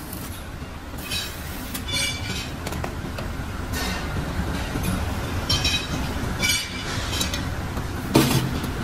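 Metal lathe running with a steady low rumble while a steel rickshaw wheel rim turns in it. Ringing metallic clinks come every second or so, with a louder metal clank near the end.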